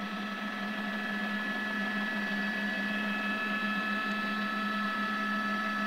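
Steady drone of a helicopter's engine and drive heard from inside the cabin: a low hum with several steady higher whining tones, growing slightly louder.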